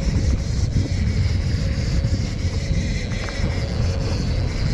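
Jet ski engine running steadily at low speed, under heavy wind buffeting on the microphone.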